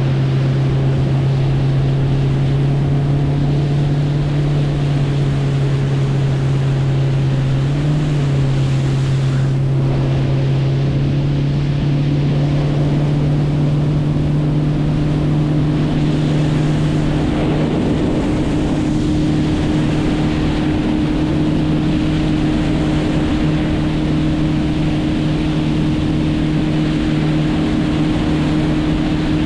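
Boat motor running at a steady speed over water and wind noise, its hum rising slightly in pitch about eight seconds in and again around seventeen seconds.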